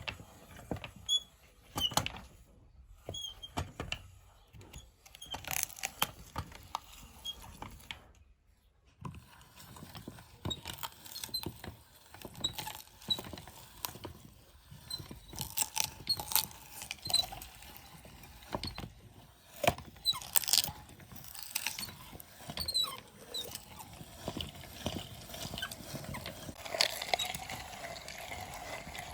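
Meat grinder working through green pumpkin: irregular cracking and crunching with short high squeaks.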